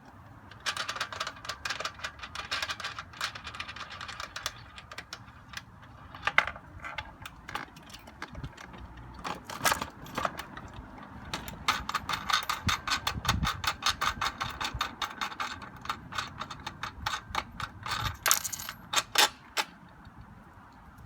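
Ratchet wrench clicking in quick runs as the corner bolts of a pedal drive pontoon boat frame are undone, with a few knocks of metal parts being handled between the runs.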